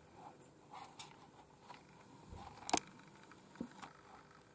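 Quiet room with a few faint small handling noises and one sharp click a little past halfway.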